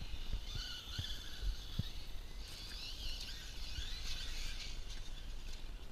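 Radio-controlled buggy's motor whining, its pitch rising and falling with the throttle as it drives up a gravel pile. A few low thumps come through underneath.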